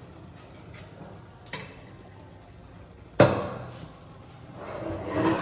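Cookware being handled on a kitchen counter: a small click, then one sharp knock about three seconds in that rings off briefly, and more clatter near the end.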